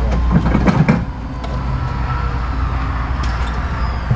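Steady low rumble with a few sharp metal clicks and clanks as a ball-mount hitch is fitted into a vehicle's receiver hitch.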